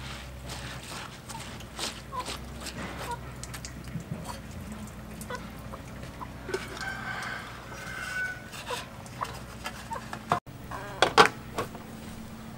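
Chickens clucking, with a few longer calls in the middle, over soft rustling and handling of rice and cloth in a steamer pot. A louder clatter of sounds comes near the end.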